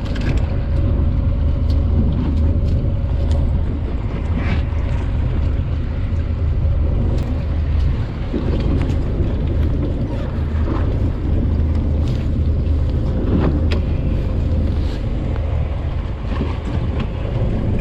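Fishing boat's engine running steadily under way: a continuous low drone with a faint steady tone above it.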